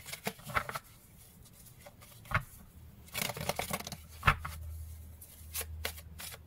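A deck of cards being shuffled by hand: intermittent soft riffling and flicking of the cards, with a few sharper clicks.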